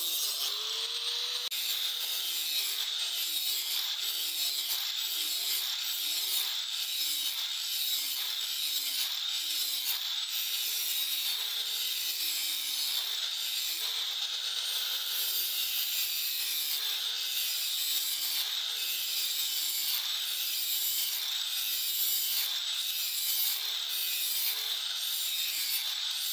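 Handheld angle grinder with an abrasive disc grinding the steel blade of a long bolo, a steady grinding hiss over the motor's whine. The motor pitch keeps dipping and recovering as the disc is worked along the blade.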